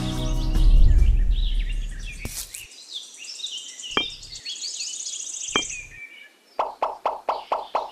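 Birds chirping, with a loud low rumble in the first two seconds. Two sharp clicks about four and five and a half seconds in, then a steady pulsing rhythm of about three to four beats a second starts near the end.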